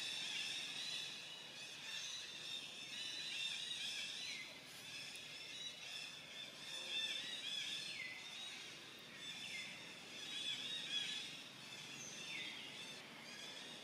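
Dense chorus of high chirping wildlife calls, with a falling call every few seconds.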